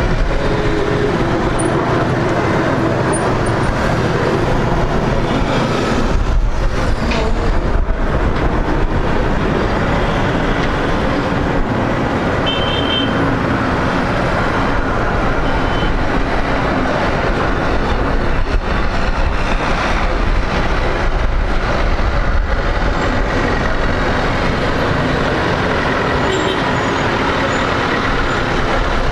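Boeing 787-10's Rolls-Royce Trent 1000 turbofan engines running steadily at taxi power as the airliner turns and lines up on the runway.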